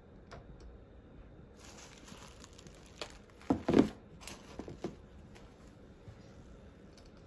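Handling noise as a pair of leather sneakers is turned around and set back down on a cardboard shoebox lid. There is rustling and a few light knocks, loudest a little past the middle.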